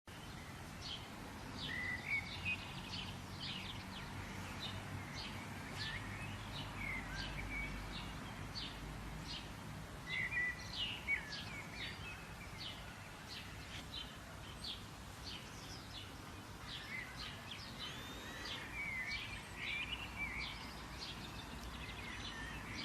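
Outdoor ambience of birds chirping: many short, sharp chirps and a few sliding calls, scattered throughout over a steady hiss and low rumble.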